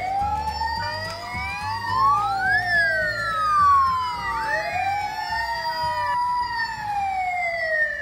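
Electronic siren of a Kid Connection toy police car, wailing with several overlapping tones that slide slowly up and down.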